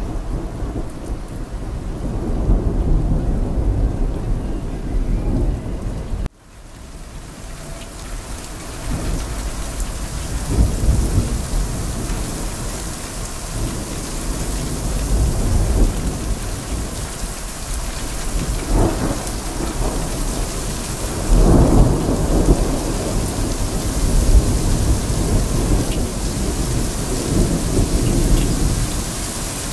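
Heavy rain falling steadily with rolling thunder rumbling underneath. The sound briefly cuts out about six seconds in and builds back up, and the loudest roll of thunder comes about two-thirds of the way through.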